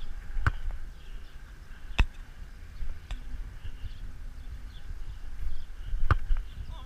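Several sharp thuds of a football being kicked and bouncing on artificial turf, the loudest about two seconds in and again about six seconds in, over a low steady rumble.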